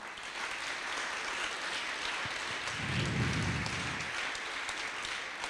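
Large audience applauding, a steady patter of many hands clapping that swells slightly in the middle and thins out near the end.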